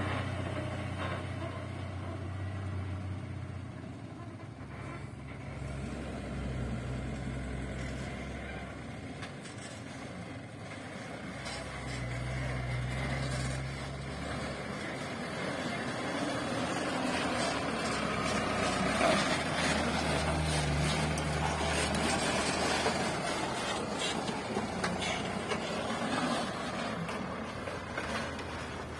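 Trucks driving slowly along a dusty dirt road: a steady low engine hum that shifts in pitch now and then, with tyre and road noise. It gets louder in the second half as a dump truck comes close and passes.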